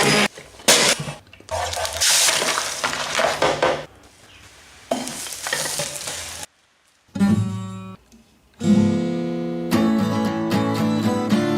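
A harsh hissing, sizzle-like noise in uneven bursts for about six seconds, broken by short gaps. After a brief silence comes a single plucked note, and then from about two-thirds of the way in, music with plucked-string notes.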